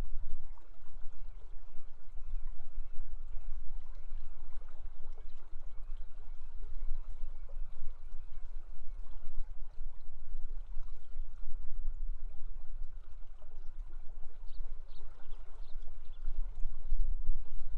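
Fast-flowing river water rushing steadily, with a deep rumble underneath.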